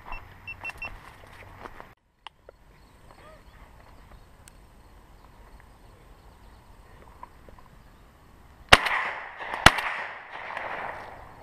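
Two shots from a 12-gauge Remington Versamax semi-automatic shotgun about a second apart, each a sharp crack with a short trailing echo.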